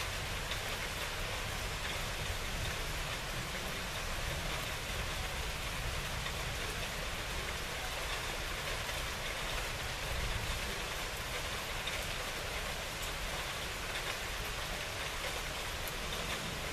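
Steady rain falling on surfaces: an even hiss with many small drop hits and no letup.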